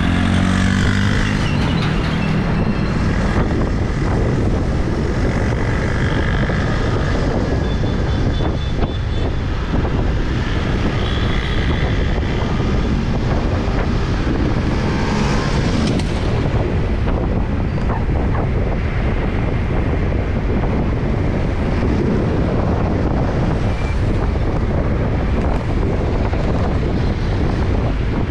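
Steady wind buffeting the microphone of a camera moving along a street, over the rumble of engines and tyres from motorbike traffic.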